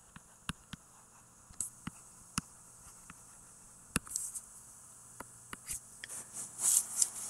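A pen tip tapping and scratching while words are written by hand: a string of separate sharp clicks with short scratchy strokes, busier near the end.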